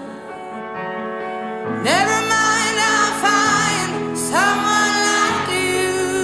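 A song: sustained instrumental chords, joined about two seconds in by a female voice singing long, wavering notes.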